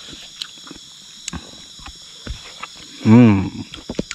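A loud belch from one of the diners, about half a second long, about three seconds in. It sounds over small clicks of eating by hand and a steady high-pitched hum.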